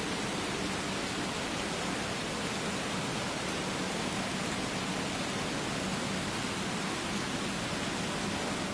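Steady, even hiss spread evenly from low to high pitches at one constant level, with no distinct events.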